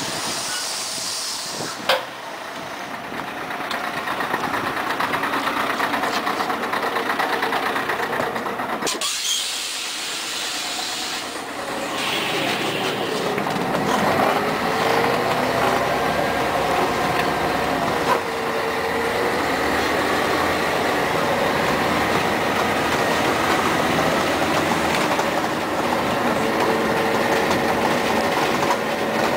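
1996 Scania CN113ALB articulated city bus heard from inside: its engine runs and pulls away, the note rising and falling through the gears, with a sharp knock about two seconds in.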